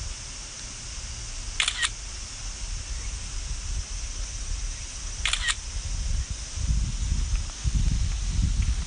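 Steady rushing hiss of a waterfall, broken twice by a short double click about four seconds apart. Low buffeting rumble builds up in the second half.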